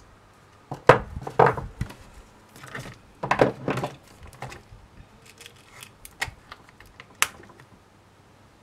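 Small metal jewellery pliers and wire being handled and set down on a work surface: irregular metallic clicks and clatters, loudest about a second in and again between three and four seconds in, with two sharp single clicks near the end.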